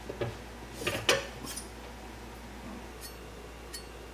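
Steel kitchen knife drawn out of a wooden knife block: a few light knocks, then a metallic scrape and clink, loudest about a second in, with two faint ticks later, over a low steady hum.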